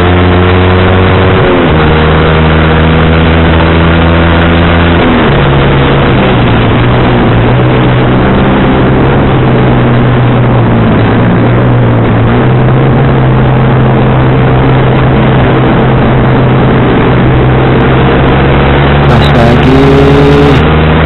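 Sport motorcycle engine with a racing exhaust, heard from the rider's seat while cruising: its note drops sharply twice in the first five seconds as the rider shifts up, then runs at steady revs and rises a little near the end. Wind noise runs under it.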